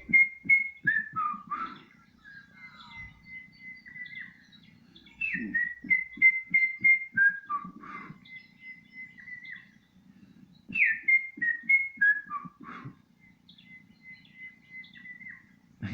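A songbird singing a loud whistled phrase three times, about five seconds apart. Each phrase steps down in pitch and is followed by a softer run of repeated notes at a steady pitch.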